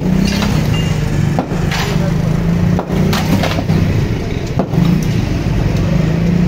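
Concrete being smashed with hammer blows, chunks cracking off and clattering down, several blows in a row. A steady low hum runs underneath.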